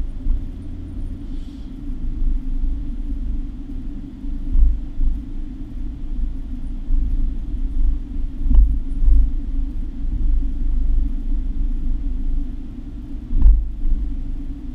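A car's engine and tyres running at low speed, heard from inside the cabin as a steady low drone that swells and dips. There are two short knocks, one about halfway through and one near the end.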